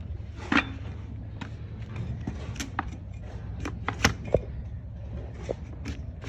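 Irregular sharp clicks and knocks from trimming tools working a donkey's hoof, over a steady low hum; the loudest knocks come about half a second in and twice around four seconds in.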